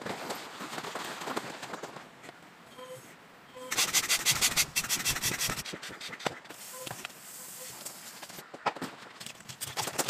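Rustling and scraping as an inflatable air-beam tent is pitched on gravel. About four seconds in comes a louder run of quick, rhythmic rasping strokes.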